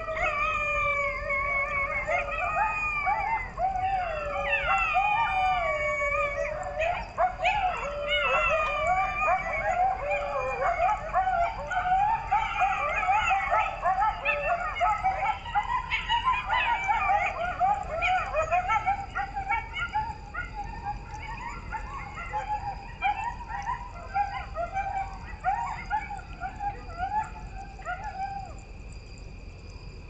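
A pack of coyotes howling and yipping in chorus. Long wavering, sliding howls at the start break into a dense jumble of short, rapid yips and yelps, which thin out and stop a couple of seconds before the end.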